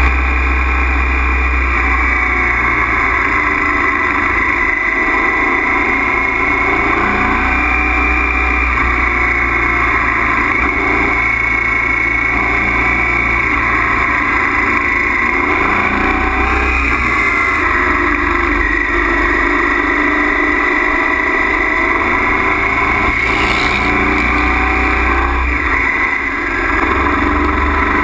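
Honda Africa Twin's V-twin engine running under steady throttle through a long wheelie on the rear wheel, heard from a camera mounted on the bike, easing off briefly near the end.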